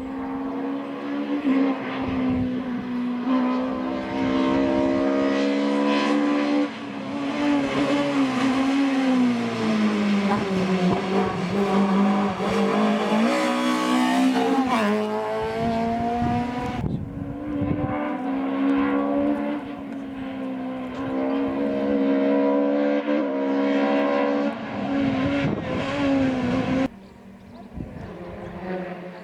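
Hillclimb race car engine running hard at high revs: the pitch sags as it slows for a corner about a third of the way in, climbs again as it accelerates away, and the sound drops off suddenly near the end.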